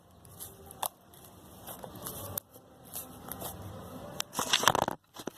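A metal spoon stirring and scraping slime in a shallow dish, with sharp clicks of the spoon against the dish and a louder run of scraping about four seconds in.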